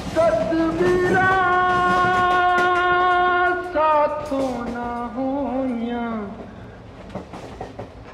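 A voice singing, with musical accompaniment: one long held note, then a slow phrase that wavers and slides downward. It drops much quieter about six and a half seconds in.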